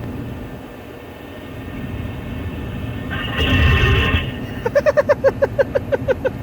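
A man snoring over a telephone line while asleep on hold: a loud, rasping snore about three seconds in, followed by a quick run of about a dozen short pulsing sounds.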